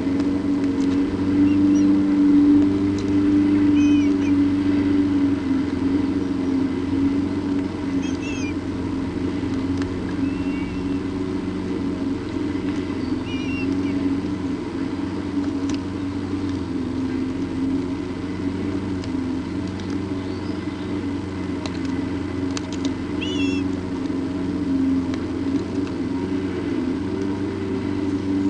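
Steady low mechanical hum, engine-like, holding throughout, with a handful of short high chirps now and then.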